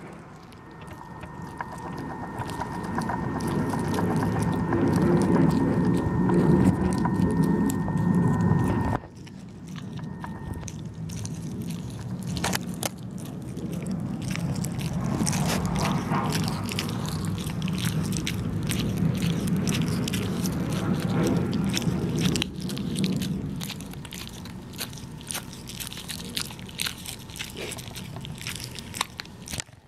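Pembroke Welsh Corgi puppy chewing and gnawing a dried catfish-skin chew, with many small crunches and clicks. A steady hum with a high tone runs through the first nine seconds and cuts off suddenly.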